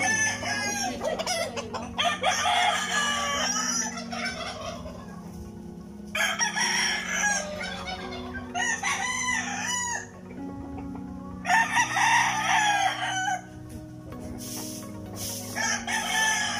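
Roosters crowing one after another, about six crows every two to three seconds, each lasting one to two seconds.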